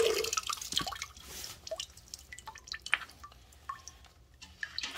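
Thin stream of flush water from a water-purifier filter's outlet tube pouring into a stainless steel pot, shut off within the first second. After that, scattered drops fall into the water in the pot.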